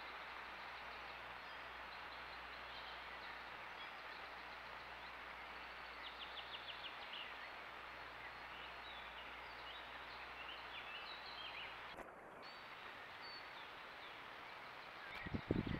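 Faint woodland ambience through a trail camera's microphone: a steady hiss with small bird calls over it, including a quick trill about six seconds in. The sound drops out briefly about twelve seconds in, and loud irregular bumps start just before the end.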